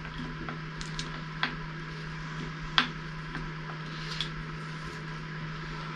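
A few faint, scattered clicks over a steady hum, the sharpest about three seconds in: a milling machine table being moved by hand to sweep a dial indicator across a workpiece.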